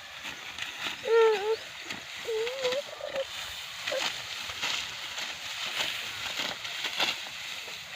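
Dry wheat stalks crunching and rustling steadily as they are cut and handled, with many small clicks. Two short wavering calls, an animal or a voice, come about a second in and again about two seconds in.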